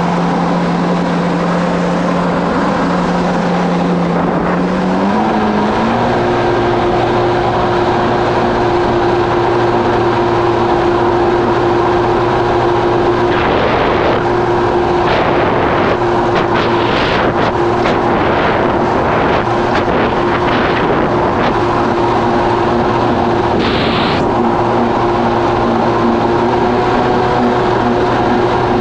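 Kawasaki SX-R 1500 stand-up jet ski's four-cylinder engine running steadily underway. Its pitch climbs about five seconds in as the throttle opens, then holds. About halfway through comes a run of short, sharp hits, the loudest one near the end.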